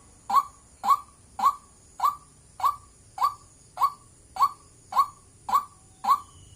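White-breasted waterhen giving its monotonous 'wak wak' call: one short, identical note repeated evenly, a little under two a second.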